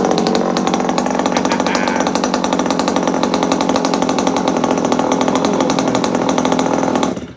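Stock Zenoah G290 two-stroke engine of a 1/5-scale Primal RC dragster idling steadily on its first run, just pull-started with a single pull and left unthrottled, through its smooth-sounding stock pipe. It cuts off suddenly near the end.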